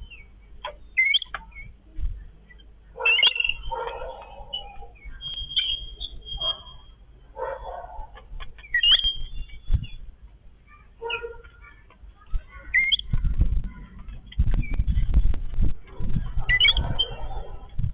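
Yellow-billed babblers calling in scattered bursts of short high chirps and harsh, scratchy chatter, over low rumbling noise that is strongest in the second half.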